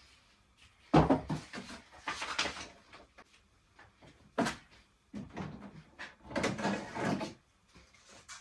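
Plastic parts being handled while a HEPA filter is fitted into a dehumidifier: a sharp knock about a second in, then several short bursts of rustling and clattering.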